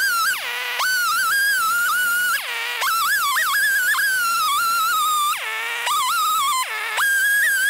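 Gas chainsaw in a chainsaw mill, ripping a cherry log lengthwise at high revs. Its high, wavering engine note drops sharply in pitch and comes straight back up about four times.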